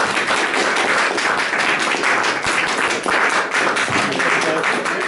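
A small audience applauding, many hands clapping together at once.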